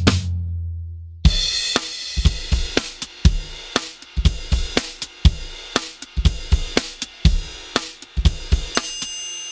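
Sampled drum kit playing a tight, dampened beat with kick, snare, hi-hats and cymbals, starting about a second in after a low bass note fades out. Near the end the beat stops on a ringing metallic percussion hit that decays slowly.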